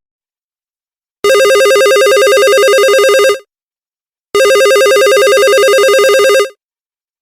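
Old telephone bell ringing twice, each ring a rapidly trembling tone lasting about two seconds, with about a second's pause between rings.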